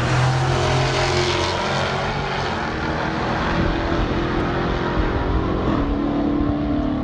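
A car engine running as the car is driven, its pitch holding steady and then shifting to new levels several times, as with revving and gear changes.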